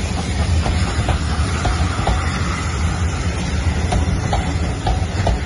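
BR Mark 1 passenger coaches rolling past close by: a steady low rumble with scattered clicks of wheels running over rail joints.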